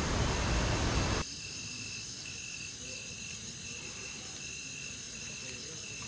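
Rushing waterfall noise for about the first second, then a sudden drop to a quieter night chorus of crickets: a thin, high, evenly pulsed chirping with fainter insect trills above it.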